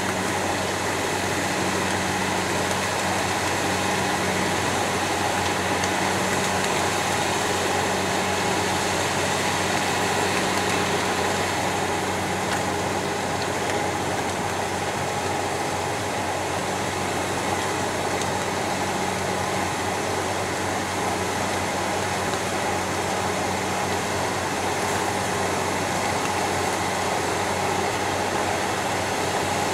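Rotary snow blower running steadily as it throws snow into a dump truck: an even engine drone mixed with the rushing hiss of snow streaming from the chute.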